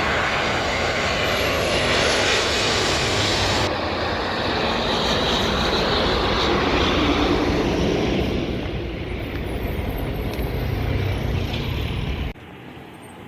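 An airplane's engines running loud, an even roar that eases somewhat about eight seconds in and breaks off abruptly near the end.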